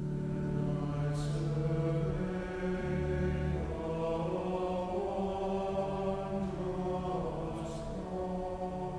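Background music: slow, chant-like choral singing in long held notes.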